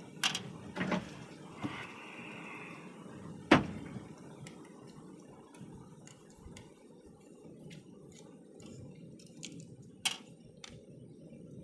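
Sharp knocks and clatter of parts being handled while a point-of-sale terminal is dismantled for scrap. The loudest knock comes about three and a half seconds in, another near the end, with light scattered clicks between.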